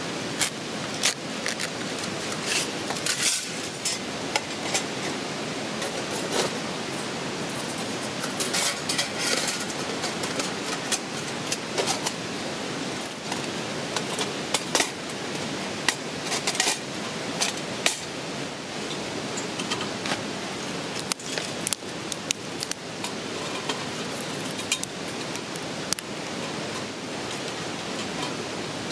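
Steady rush of a waterfall, with many irregular sharp clinks and knocks of metal camp gear being handled.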